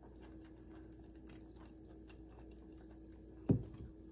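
Quiet room with a steady faint hum and a few soft ticks, broken by a single dull thump about three and a half seconds in.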